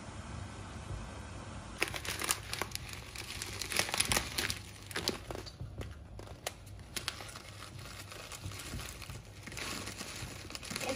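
Something crinkly being handled and crumpled: a string of rustling, crackling sounds that starts about two seconds in and goes on in irregular bursts with brief pauses.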